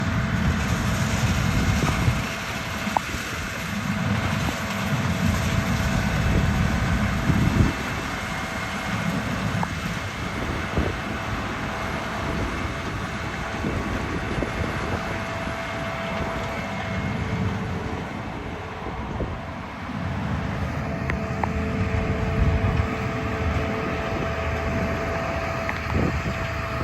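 Oxbo combine harvesting corn, a steady machine drone with a faint constant whine. Wind buffets the microphone in uneven gusts, heaviest in the first several seconds.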